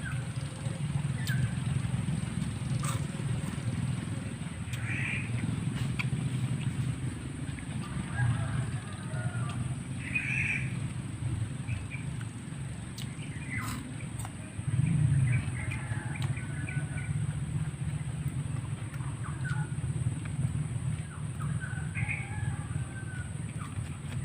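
Birds calling now and then, short separate calls every few seconds, over a steady low rumble and a constant thin high-pitched whine.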